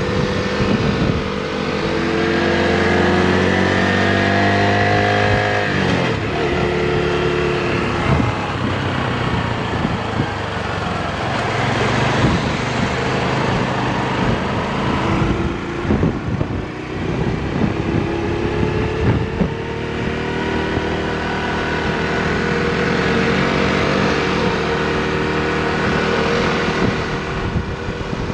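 Small motorbike engine running while riding, its pitch climbing and falling several times as the speed changes, with a rushing haze underneath.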